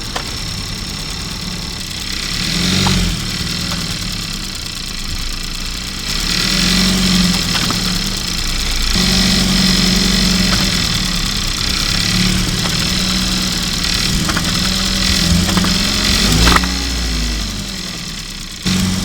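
Kia ProCeed GT running at low speed with a steady engine hum. A few times, noise comes from its seven-speed dual-clutch (DCT7) gearbox or differential, loudest about three seconds in and near the end. The noise comes when slowing to about 30 km/h and downshifting from third to second, or when reversing slowly: a fault that the owner says Kia cannot yet cure.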